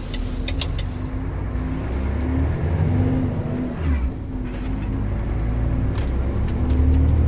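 Truck cab interior while driving: a steady low engine drone with road noise that swells and eases, and a few faint clicks.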